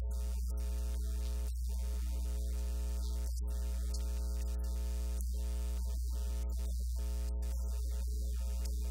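Steady electrical mains hum with a buzzy stack of evenly spaced overtones, unchanging throughout. The conversation's speech is not heard under it; the audio carries only the hum.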